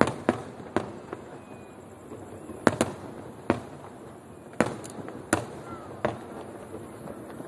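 Aerial fireworks shells bursting in the sky: about ten sharp bangs at uneven intervals, some in quick pairs.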